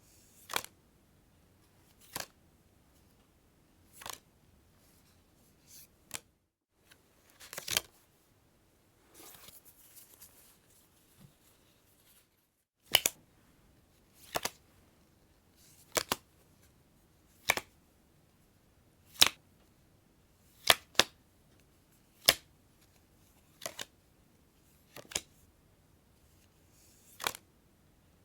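Playing cards giving a series of single sharp snaps, about one every second and a half to two seconds, some of them doubled. About nine seconds in there is a short, soft sliding rustle.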